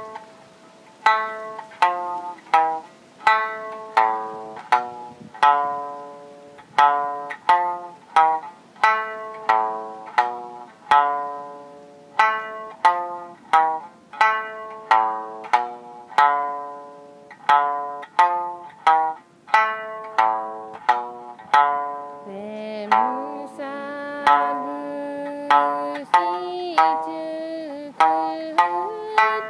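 Sanshin, the Okinawan three-stringed lute, plucked in a slow melody of single notes, each ringing and fading quickly. About two thirds of the way through, a voice starts singing along in long, wavering notes.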